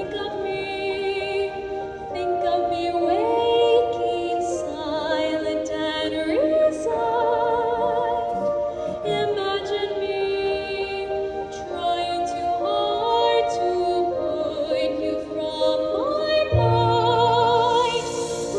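A woman singing a solo ballad into a handheld microphone over instrumental accompaniment, holding long notes with vibrato. A deeper bass part comes in near the end.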